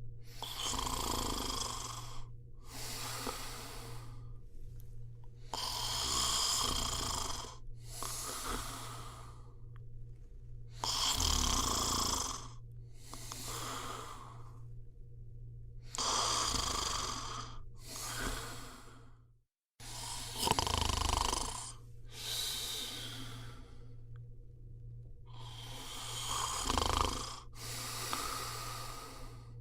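A person snoring in a slow, even rhythm: about six breaths, each a longer rough rasp followed by a shorter one, over a faint steady hum. The sound cuts out for an instant a little past the middle.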